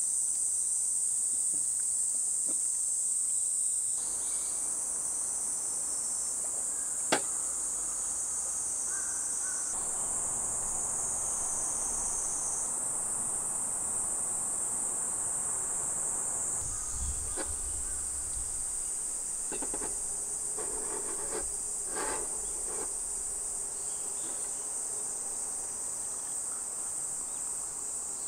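Steady, high-pitched chorus of insects in woodland. About seven seconds in there is one sharp click, and later a few soft knocks.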